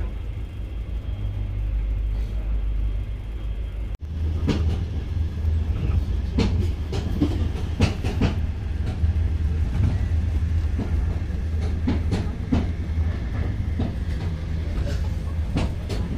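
A moving passenger train heard from inside the carriage: a steady low rumble. After a cut about four seconds in, the rumble is louder and is joined by irregular clacks and knocks.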